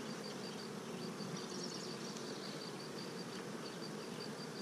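Honey bees buzzing steadily over an open hive box, a low, even hum.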